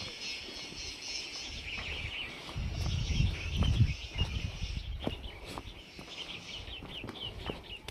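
Birds chirping over a steady high insect drone. A low rumble swells about three seconds in and fades a second later.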